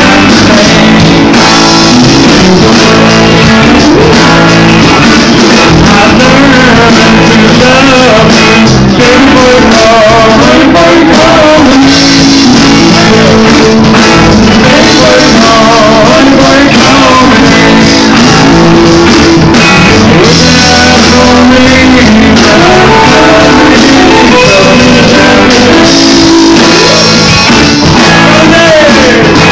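Live rock band playing loud: two hollow-body electric guitars and a Pearl drum kit, with a man singing into a microphone.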